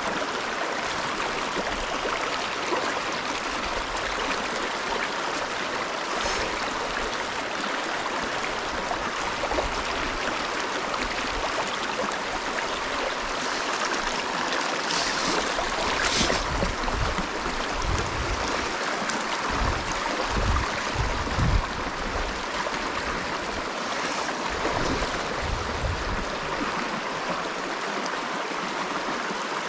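Shallow river riffle: water rushing and splashing steadily over and around boulders, with a few low thumps around the middle.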